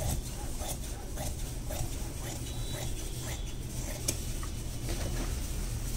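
Large tailoring scissors cutting through folded brocade blouse fabric on a table: a run of short snips, one sharper click about four seconds in, over a steady low hum.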